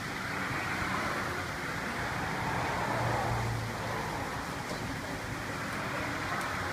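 Steady rushing splash of seawater pouring into a live-fish tank through its circulation pipes, with a brief low hum about halfway through.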